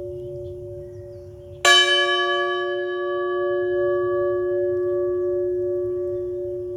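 A bell struck once, about a second and a half in. It gives a sharp ring with bright overtones that fade within a couple of seconds, while its deep hum rings on. Before the strike, the hum of the previous stroke is still sounding.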